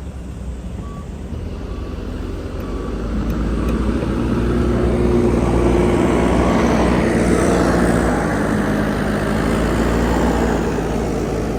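JCB backhoe loader's diesel engine running, its revs and loudness building a few seconds in, holding high through the middle under working load, then easing back near the end.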